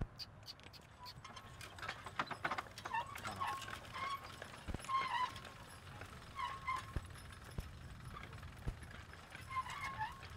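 A team of Percheron draft horses pulling a vintage John Deere horse-drawn check-row corn planter: hooves clopping, the planter's wheels and wire mechanism clicking and rattling, with short high squeaks every second or two.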